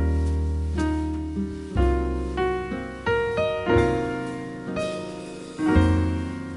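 Background piano music: chords struck about once a second over a held bass, each decaying before the next.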